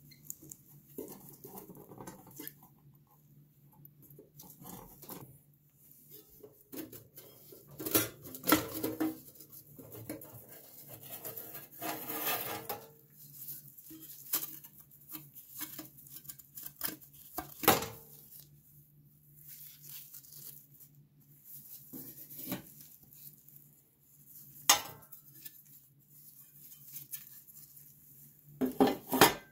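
Metal clinks, knocks and scraping from the rusty parts of an old Columbia family scale and hand tools being handled, with separate sharp knocks a few seconds apart and a longer scrape in the middle.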